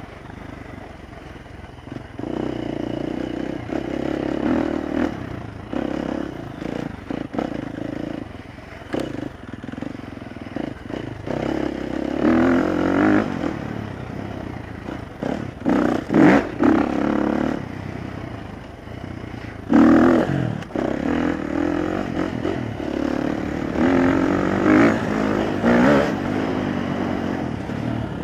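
Dirt bike engine riding a rough bush track, revving up and easing off with the throttle in repeated bursts, with knocks and clatter from the bike over bumps.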